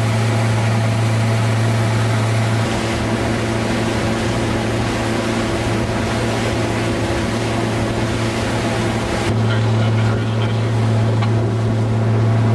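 Motorboat engine running at speed with a steady low drone, over the rush of water from the wake. The engine note shifts about three seconds in and returns about nine seconds in.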